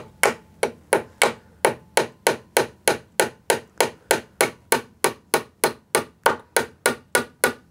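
Small hammer tapping a brad through a wooden trim strip into a pine board, an even run of strikes at about three a second.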